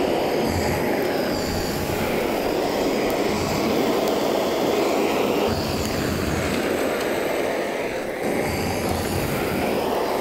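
Handheld gas torch burning with a steady, loud rushing roar as its flame chars the skin of a tomato.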